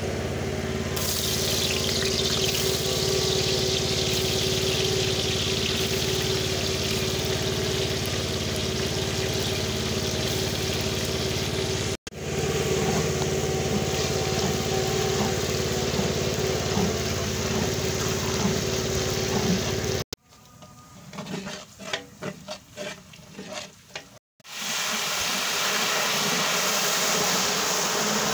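Sliced onions frying in hot oil in a large aluminium deg, sizzling with a steady hiss as a long ladle stirs them, over a steady low hum. The sound breaks off sharply a few times, and a little after the middle it drops to a quieter stretch of scattered knocks before the sizzling returns.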